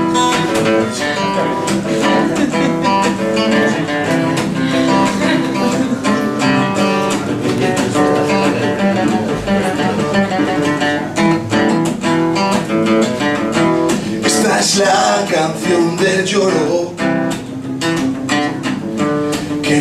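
Acoustic guitar played alone in an instrumental break of a song, chords strummed in a steady rhythm.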